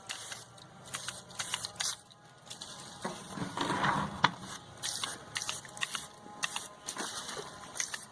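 A series of sharp clicks and light knocks of parts being handled, with a longer scraping rustle from about three seconds in.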